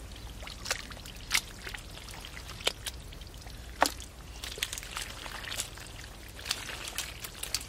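Hands splashing and sloshing in shallow muddy water while groping for fish, with irregular sharp splashes and drips, the loudest about four seconds in.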